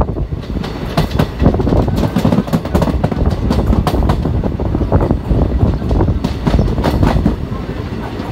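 Train heard from aboard a moving carriage: a steady rumble with repeated wheel clicks and clatter as the wheels run over the rail joints.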